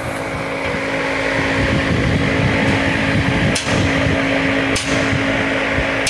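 Large pedestal shop fan running steadily with a hum, and a couple of sharp light knocks about three and a half and five seconds in.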